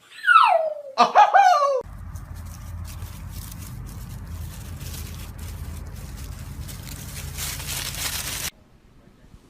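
A dog howling on command: one call sliding down in pitch, then a second, wavering call. After that there is a steady low hum with faint ticks, which cuts off shortly before the end.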